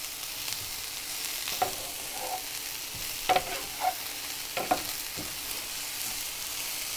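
Shredded Brussels sprouts sizzling steadily in oil in a pan over a medium gas flame, while a wooden spatula stirs them and scrapes the pan several times.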